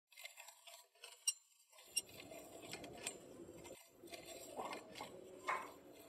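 Manual wheelchair being wheeled along a hard corridor floor, its metal frame giving light clinks and clicks, with a few sharper ticks scattered through, over faint room noise.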